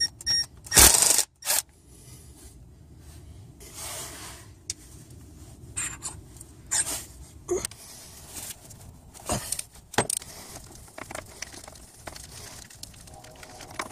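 Light metallic clinks and scrapes of timing-belt parts being handled: the crankshaft timing sprocket slid off its shaft and an idler pulley worked on by hand. A short, loud rasp comes about a second in.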